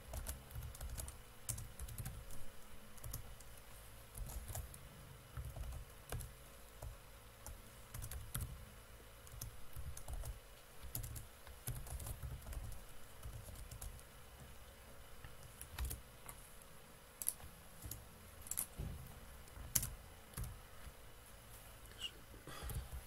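Faint typing on a computer keyboard: irregular key clicks and soft thumps in short runs with pauses between them.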